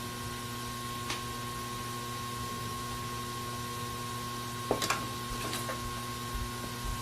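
A steady hiss with a faint high whine, broken by a few light clicks: one about a second in, then a quick cluster near the five-second mark, as small parts and tools are handled during a laptop repair.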